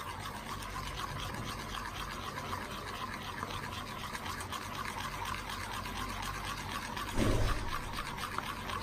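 Metal spoon stirring a thick creamy dressing in a bowl: a quick, continuous run of wet squelches and spoon scrapes and clicks against the bowl. A dull thump about seven seconds in is the loudest moment.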